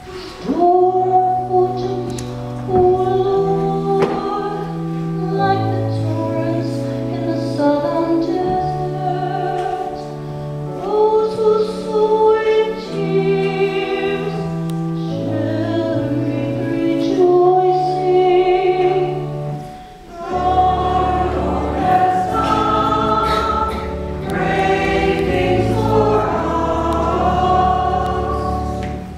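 Choir singing a hymn over held accompanying chords, with steady bass notes changing every second or so; the music dips briefly about twenty seconds in before resuming.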